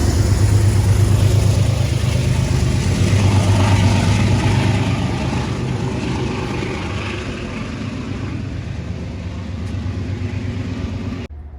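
Metro-North commuter train running past at close range: a loud, steady rumble with a low hum that slowly fades, cutting off suddenly near the end.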